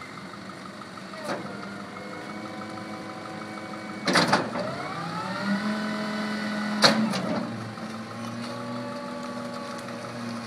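Small rear-loader garbage truck's engine running, its speed rising and falling as the hydraulic packer works, with loud metal clanks from the rear hopper about a second in, near four seconds and near seven seconds.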